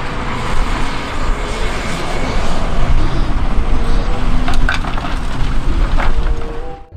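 Excavator sound effect: a heavy engine running with a low rumble and a noisy mechanical rush, and a few sharp clanks about four and a half seconds in. It cuts off suddenly near the end.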